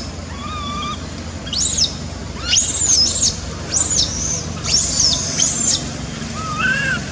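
A quick run of about seven short, high-pitched calls, each rising and falling, with a lower, softer call near the start and another near the end, over a steady low hum.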